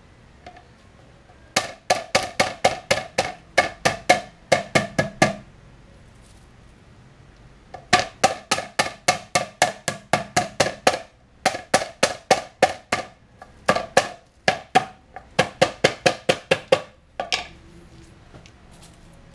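Knife striking lemongrass stalks against a cutting board in quick knocking runs of about four or five blows a second, with short pauses between runs: the lemongrass bulbs being pounded to bruise them.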